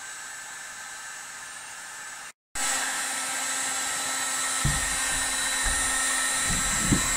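Handheld electric heat gun blowing, a steady fan hiss with a faint hum, warming a dented plastic trailer cover so it can be pushed back into shape. The sound cuts out briefly about two and a half seconds in and comes back louder, with a few dull low bumps in the last few seconds.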